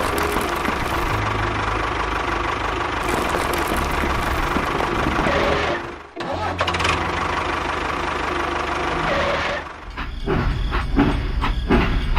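Small engine running steadily, a low tone under a mechanical rattle. It breaks off abruptly twice, and near the end gives way to a quick, uneven run of knocks and clatter.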